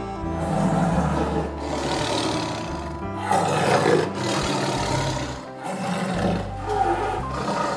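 Jaguar growling in a series of rough roars, each about a second long with short breaks between them, over background music.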